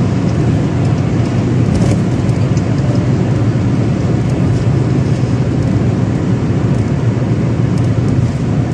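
Steady low drone of a car driving at highway speed, heard from inside the cabin: engine and tyre noise.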